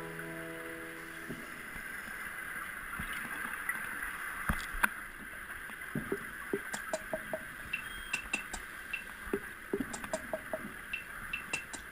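Underwater sound heard through a dive camera's housing: a steady hiss with scattered sharp clicks, and from about halfway on, frequent short clicks and brief high pips in quick groups.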